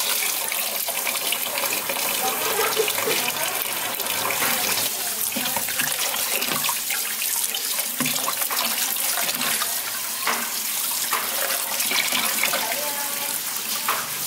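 Tap water running into a plastic basin while hands swish and rub bean sprouts in the water, with splashing and sloshing.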